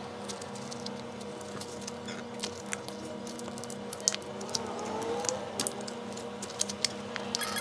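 Plastic pry tool clicking and scraping along the edge of a smartphone's glued back glass as the adhesive gives way: many short irregular ticks over a steady low hum.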